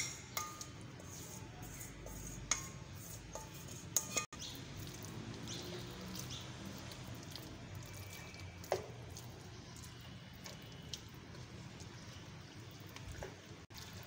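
Marinated beef pieces sizzling steadily in hot oil in a kadhai, with a spatula now and then clinking against the pan as they are stirred.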